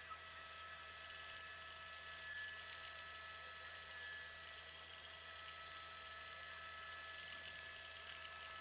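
Faint steady hum with several constant whining tones above it, unchanging throughout.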